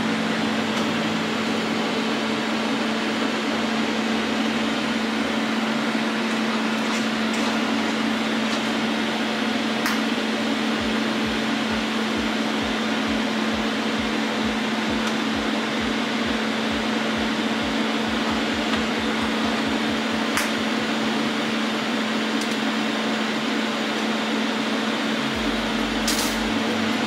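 TIG welding: a steady electric buzz from the arc and welder with a constant hum underneath.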